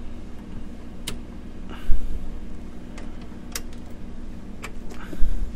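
Test leads and alligator clips being handled on a workbench: scattered sharp clicks and clacks, with two low thumps, about two seconds in and near the end, over a steady low electrical hum.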